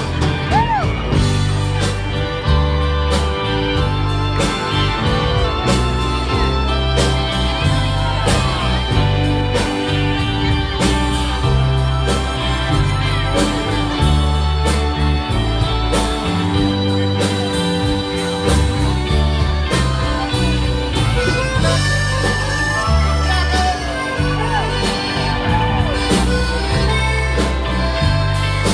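Live Tex-Mex country band playing an instrumental break in a slow song: drums, bass and electric guitars, with accordion and keyboard holding sustained chords.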